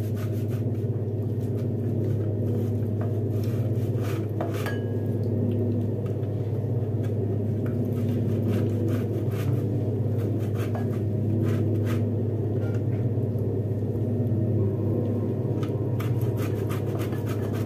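A steady low electrical or mechanical hum runs throughout. Over it come light scattered clicks and scrapes of a metal box grater knocking against a glass bowl as boiled eggs are grated on its coarse side.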